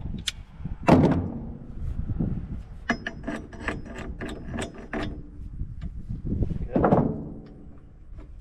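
Small hammer tapping on steel parts of an Aermotor windmill head: a rapid run of sharp metallic taps with a high ringing tone, with a few heavier knocks before and after.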